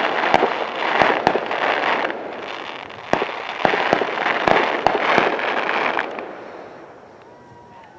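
Fireworks going off: a dense crackle with many sharp bangs, in two bursts that die away about six seconds in.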